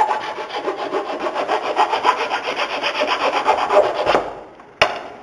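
Hand file rasping over the wooden tip of a bow in quick back-and-forth strokes, rounding off the edges of the string nock so they won't cut the bowstring. The filing stops about four seconds in, followed by a single sharp knock.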